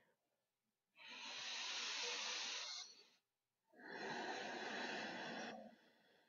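A woman taking two long, deep breaths in a slow yoga rhythm, each a steady hiss of about two seconds with a short pause between.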